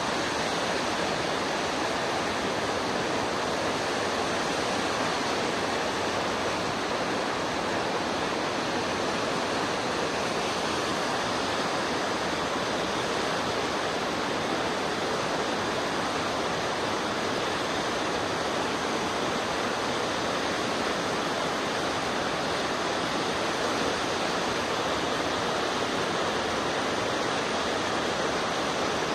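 A steady, even rushing noise, like running water, with no breaks or separate sounds in it.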